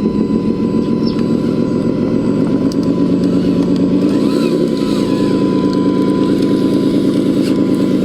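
Model truck engine running steadily with a rapid throb, briefly rising in pitch about halfway through, with a thin steady whine above it.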